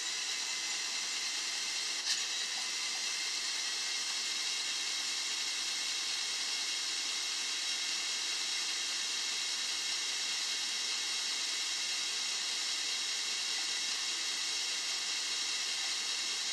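Lego Technic four-bladed variable-pitch propeller spinning at a steady speed on an electric motor: a steady rushing hiss of air off the blades with a faint, even whine, the speed holding constant.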